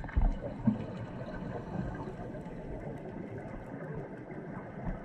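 Muffled underwater sound picked up through a camera's waterproof housing: a steady low rumble of moving water, with a couple of dull knocks near the start and faint scattered ticks.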